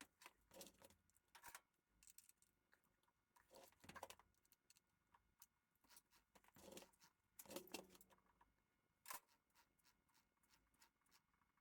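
Near silence, with faint scattered clicks and soft handling noises.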